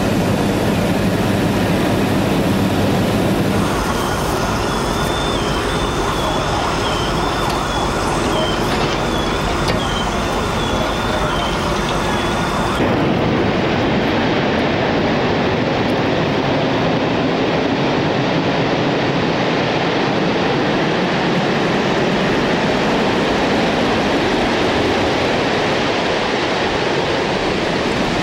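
A high electronic alarm steps back and forth between two pitches over steady street noise. About halfway through, a continuous loud rushing roar takes over as the North Tower of the World Trade Center collapses and its debris cloud sweeps in.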